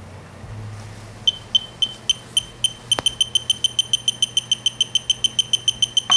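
Electronic torque-angle wrench beeping as a bolt is turned toward its 55-degree angle target: high beeps begin about a second in and come faster and faster, merging into a steady tone right at the end as the target angle is reached.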